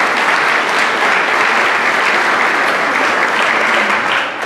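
Audience applauding, the clapping beginning to die away near the end.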